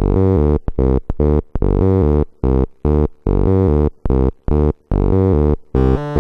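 Buzzy electronic notes from a Casio VL-1 and step-sequencer rig, played as a fast, staccato repeating pattern of short chopped notes with brief gaps between them. The pattern thickens near the end.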